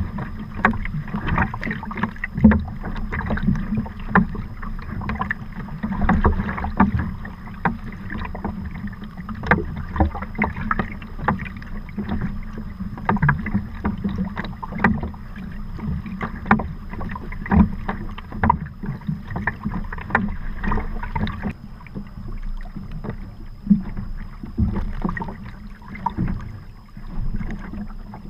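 Sea kayak moving through choppy sea: a steady low rush of water along the hull, broken by frequent irregular sharp splashes and slaps from the paddle strokes and waves against the hull.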